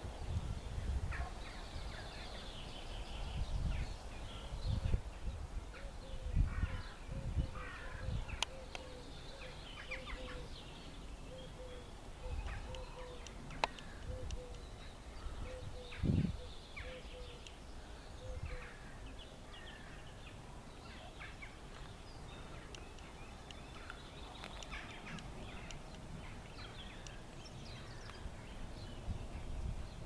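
Wild birds singing and calling, a mix of short chirps and warbles, with one bird repeating a low note about twice a second for much of the time. Gusts of wind rumble on the microphone now and then.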